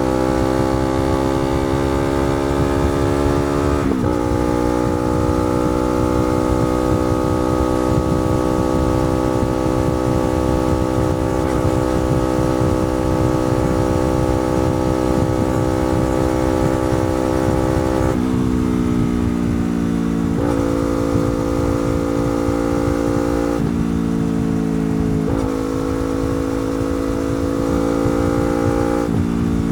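Yamaha R3's parallel-twin engine with a slip-on exhaust, riding under way. Its note climbs slowly and drops sharply about four seconds in, then holds steady. In the last twelve seconds it steps abruptly down and up in pitch several times as gears are changed.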